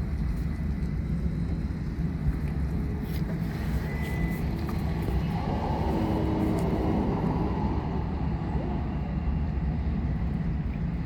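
Steady low rumble of a running engine or motor, swelling a little for a few seconds in the middle.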